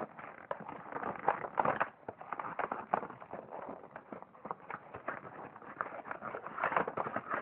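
A cardboard doll box and its packaging handled and opened close to the microphone: irregular rustling with clusters of taps and knocks.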